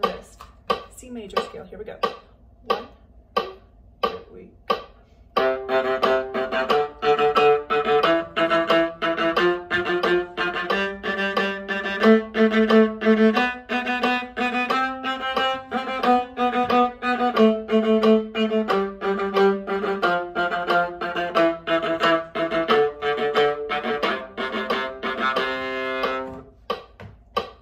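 Metronome clicking steadily. About five seconds in, a viola joins, playing a one-octave C major scale up and back down in a repeated accented rhythm of short, detached notes, the bow stopping after each eighth note.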